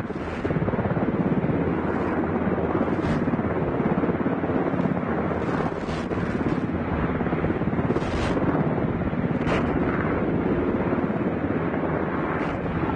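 Sikorsky HH-60G Pave Hawk helicopter hovering close by, its main rotor chopping in a fast, steady beat over the engine noise.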